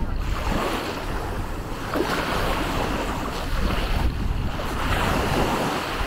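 Small Baltic Sea waves washing onto a sandy beach, surging and easing every second or two, with wind rumbling on the microphone.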